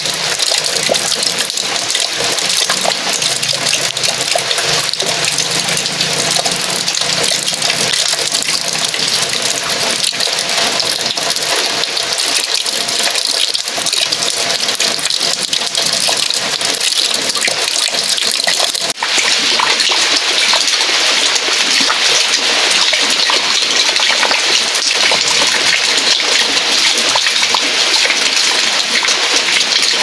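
Heavy rain, with runoff from a plastic sheet pouring and splashing into a full bucket of water. A steady, loud rush that drops out for an instant a little past halfway and comes back slightly louder.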